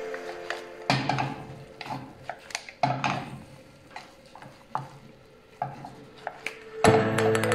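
A wooden spatula knocks and scrapes against a frying pan as shrimp in sauce are stirred, giving irregular clicks and scrapes. Music comes in near the end.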